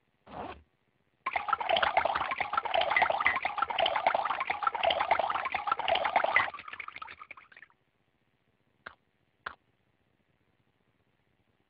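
Liquid pouring in a steady stream into a cup for about five seconds, then trickling off. Two short knocks follow about half a second apart.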